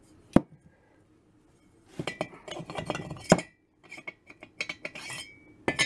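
Metal cylinder liners clinking and knocking against aluminium JAWA motorcycle cylinder barrels as they are set into the bores and lifted out, test-fitting modern Czech liners that do not fit the old Czechoslovak cylinders. A sharp knock comes just after the start, then a run of short clinks from about two seconds in, with one loud knock a little past three seconds and more clinks near the end.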